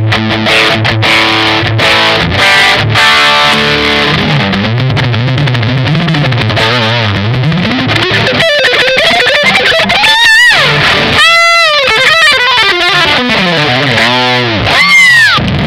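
Distorted electric guitar played through a Vox StompLab multi-effects pedal on a drive patch. It starts with chords, then moves to lead lines with wide string bends and vibrato, ending on a high bent note that falls away.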